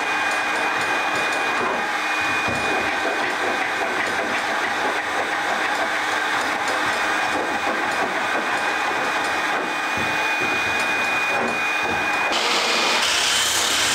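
Electric heat gun blowing steadily, its fan motor giving a thin high whine, while a paint scraper scrapes heat-softened paint off an old wooden door. Near the end a louder, brighter hiss takes over.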